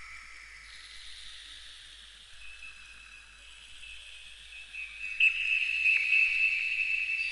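Meditative ambient music of sustained high ringing tones. A quiet tone fades in about two and a half seconds in, and a brighter tone is struck about five seconds in and rings on.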